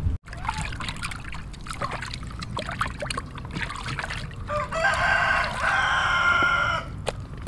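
A rooster crows once, a single drawn-out crow of about two seconds, coming past the middle and the loudest thing heard. Before it come scattered light clicks and knocks.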